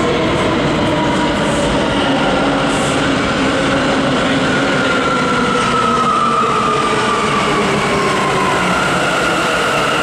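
Bombardier R179 subway train pulling into the station and braking. Its drive makes a whine in several tones that fall in pitch as it slows, over a steady rumble of wheels on rail.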